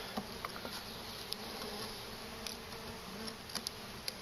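Package of honey bees buzzing with a steady low hum, with a few faint clicks, two of them close together near the end.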